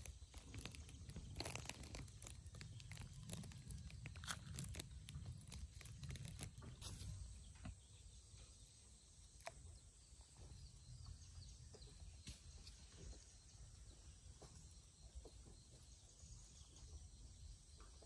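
Thin plastic bag crinkling and rustling in short crackles for the first several seconds, then faint outdoor quiet with a few scattered small clicks.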